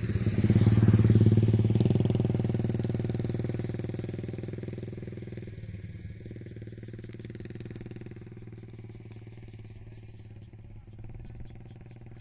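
A small engine running steadily, loudest about a second in and then slowly fading away.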